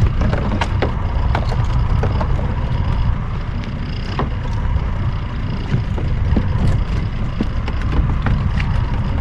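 Wind buffeting the microphone in a steady low rumble, with water lapping against the hull of a small open boat and scattered sharp clicks and taps of fishing tackle being handled.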